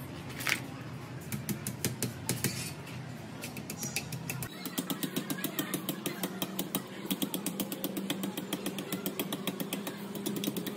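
Light, scattered metal taps and clicks over a low hum. About halfway through a small machine sets in, ticking rapidly and evenly over a steady hum.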